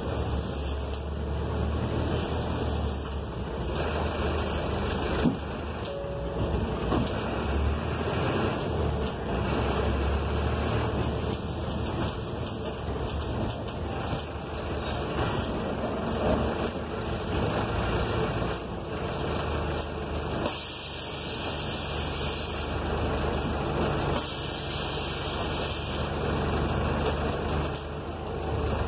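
City bus engine running with tyre and road noise on a wet street, heard from the driver's seat, with two stretches of hiss in the second half.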